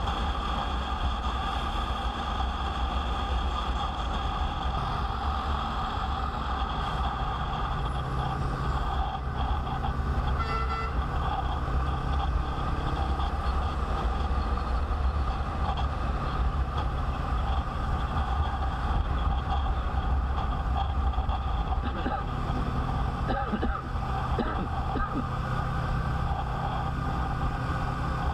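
Motorcycle on the move, with heavy wind rumble on the microphone and a steady engine drone. A short horn beep sounds about ten seconds in.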